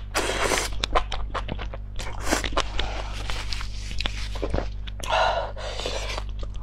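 Close-miked eating of spicy enoki mushrooms: slurping strands in and chewing, with many small crunchy, wet mouth clicks. There is a longer wet noise about five seconds in.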